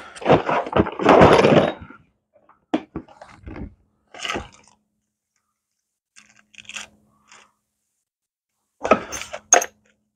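A loud burst of noise in the first two seconds, then scattered short metallic clinks, knocks and scrapes of small hardware being rummaged through, with pauses between them.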